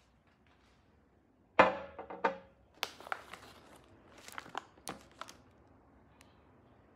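A glass mug knocks down on a table about a second and a half in, ringing briefly. After it comes a run of crisp crinkles from a clear plastic bag as a cookie is pulled out.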